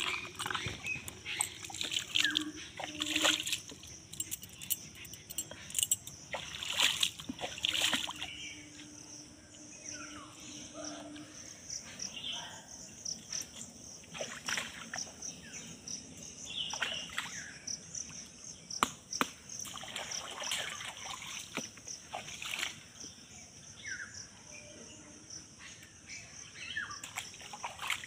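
Water splashing and sloshing as pieces of fish are washed by hand in a pond, the splashes busiest in the first several seconds. A steady high insect drone runs underneath.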